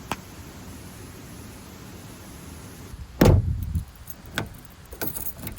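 One loud, dull thump about three seconds in with a short low ring after it, then a few sharper clicks and knocks, over a quiet steady hiss.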